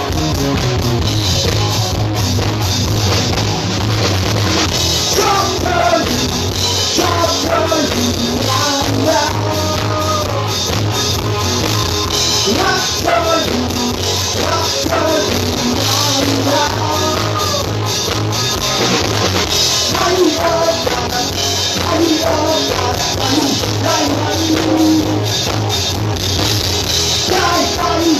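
Rock song with a lead vocal and a drum kit, played loud through a concert PA sound system.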